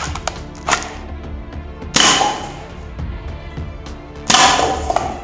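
Toy pump-action shotgun being worked and fired: a few light clicks, then two loud, noisy bursts about two seconds apart. Background music plays throughout.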